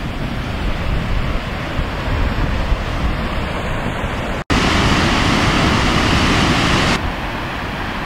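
Þjófafoss waterfall: a steady rush of falling and churning water, with wind on the microphone. It turns louder and brighter at a cut about halfway through, then drops back shortly before the end.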